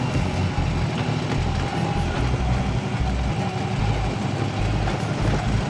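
Harley-Davidson motorcycle riding over a washboard dirt road: the engine running with a steady, heavy low rumble, jolted unevenly by the corrugated surface.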